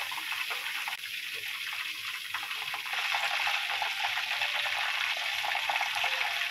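Flour-coated chicken pieces deep-frying in hot oil in a wok: a steady bubbling sizzle that grows a little louder about halfway through.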